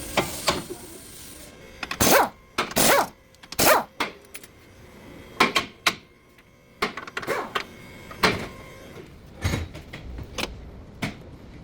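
A series of sharp knocks and clunks at irregular intervals, roughly one a second.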